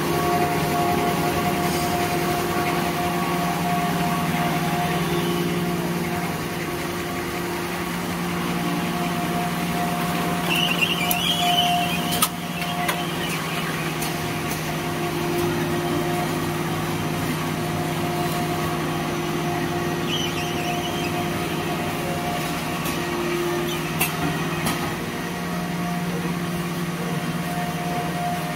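Automatic facial-tissue and hand-towel film packing machine running: a steady mechanical hum with several held tones, a few sharp clicks and a couple of short hisses.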